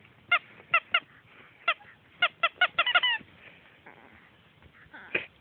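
Rubber squeaky duck toy squeezed in a small dog's bite, giving about nine short squeaks in quick succession over the first three seconds, the last one drawn out.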